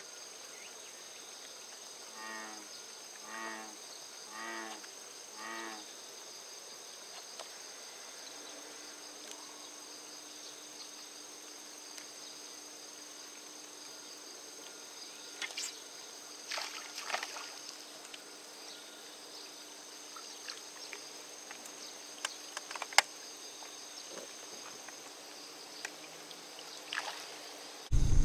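Steady high, even buzz of insects around the pond. Four low calls sound about a second apart a couple of seconds in. A faint steady hum joins from about eight seconds, and scattered light clicks fall in the second half.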